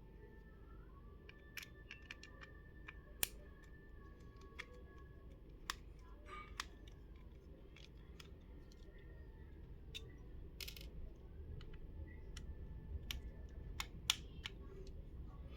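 Faint, scattered clicks and ticks of a small screwdriver and metal parts working the screws out of a Nokia N70 phone's frame, over a low hum.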